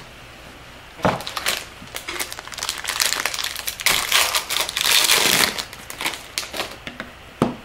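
Crinkling and crackling of a foil trading-card pack wrapper being handled and torn open, thickest in the middle, with a short knock near the end.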